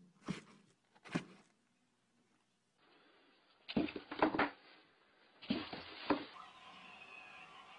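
A cat knocking about inside a cardboard box: two single thumps on the cardboard in the first second, then two quick flurries of thumps a couple of seconds apart. After that, a steady faint hiss.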